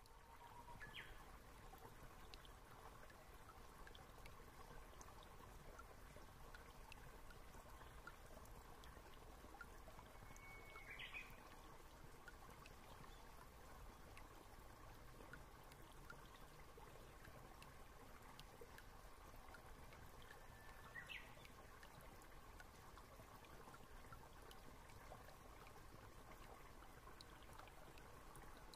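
Near silence: a faint steady hiss with a short, high chirp about every ten seconds.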